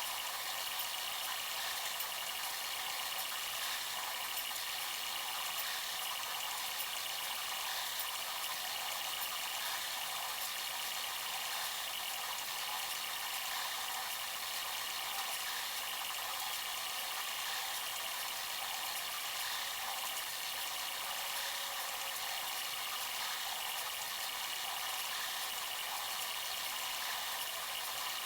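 Bambu Lab A1 3D printer running mid-print: a steady mechanical whir and hiss with a faint high hum, unchanging throughout.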